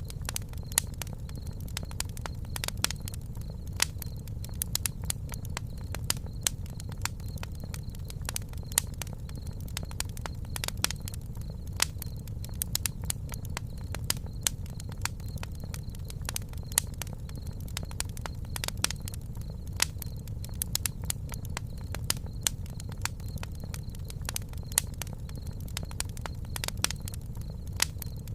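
Wood campfire crackling, with frequent irregular sharp pops over a steady low rumble.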